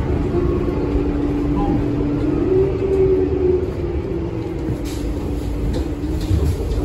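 Cabin noise inside a 2008 New Flyer D40LF diesel city bus: a steady low engine rumble, with a whine held at one pitch through the first half and a few light rattles in the second half.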